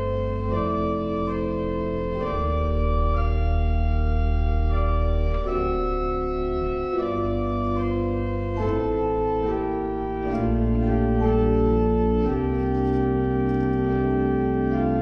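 Pipe organ playing a chorale prelude: slow, sustained chords over deep pedal bass notes, the harmony changing every second or two.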